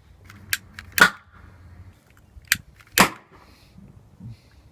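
Oxyhydrogen (HHO) gas from a homemade electrolysis generator igniting in sharp pops: twice a small click is followed about half a second later by a louder bang.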